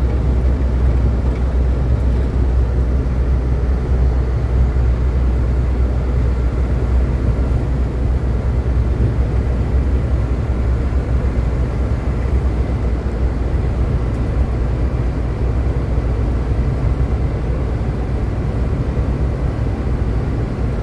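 Steady engine and road noise of a moving vehicle on the road, with a strong low rumble.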